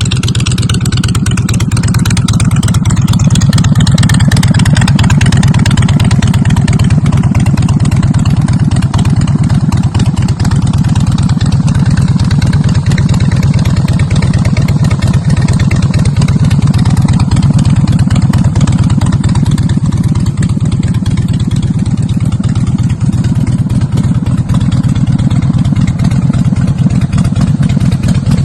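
Harley-Davidson Breakout's V-twin engine idling loudly through its exhaust, a steady rapid pulsing with a slight swell in level a few seconds in.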